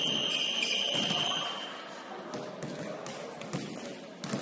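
Gym scoreboard buzzer sounding one steady high-pitched tone that cuts off about a second and a half in. Then basketballs bounce on the hardwood court.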